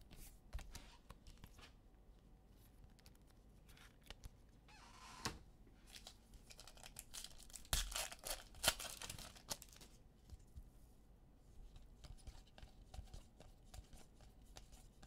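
Foil wrapper of a football trading-card pack being torn open by hand, a crinkling rip loudest a little past the middle. Around it, light clicks and rustles of cards being handled.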